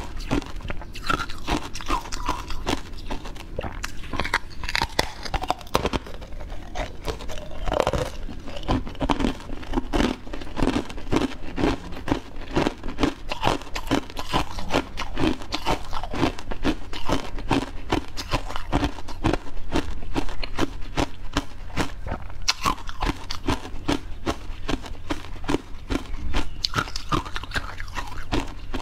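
Close-miked eating: a person biting into and chewing a yellow-crusted dessert, with rapid crunches and wet mouth sounds throughout.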